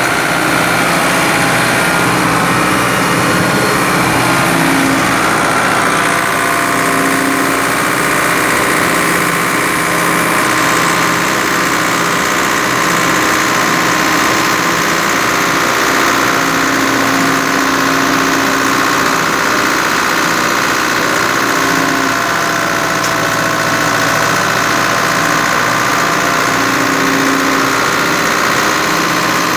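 Ford 6610 tractor's four-cylinder diesel engine running steadily, with the Çetin Kayalar automatic baler it drives picking up and baling a windrow of dry alfalfa.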